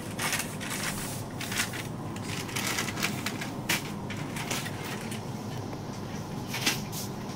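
Irregular rustles and sharp clicks, with a few louder clicks, over a steady low background hum.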